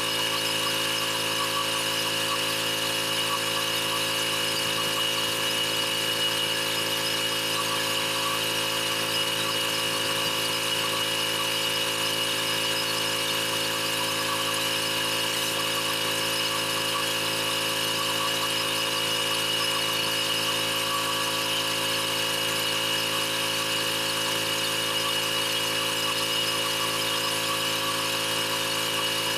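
Pressure washer running steadily at one constant speed, its engine and pump humming under a steady spray hiss.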